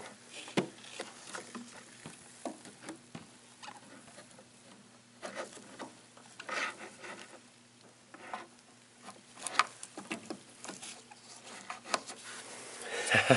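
Scattered small clicks, taps and scraping of hands and a plastic relay puller working in a truck's underhood fuse and relay box, over a faint steady low hum. No fuel pump runs: the pump is not grounded, its ground strap left disconnected.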